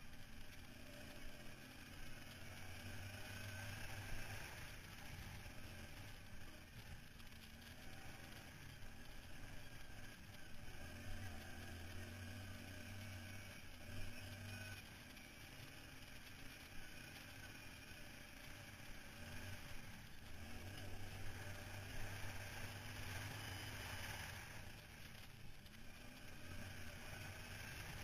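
ATV engine running while riding over a rough dirt trail, its low hum growing stronger in several stretches and easing off between them.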